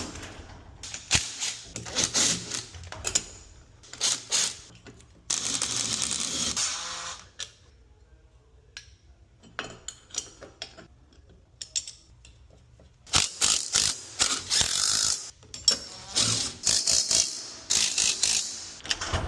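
Metal clicks and ratcheting from tools working on a garage door opener rail bracket, with two runs of a power tool lasting about two seconds each, the first about five seconds in and the second about thirteen seconds in.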